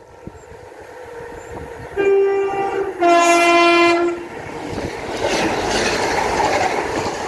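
Northern class 769 bi-mode multiple unit sounding its two-tone horn, about a second on the higher note, then about a second on the lower. The rushing rumble of the train running through the station follows and builds to the end.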